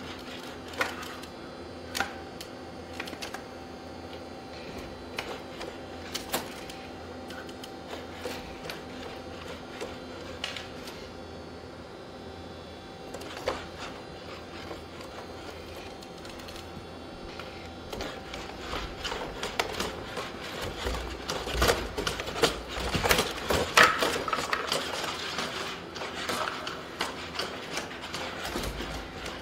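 Boston Dynamics SpotMini quadruped robot's electric joint motors whirring steadily, with scattered clicks and taps. A denser, louder run of knocks and scrapes comes from a little past halfway until near the end.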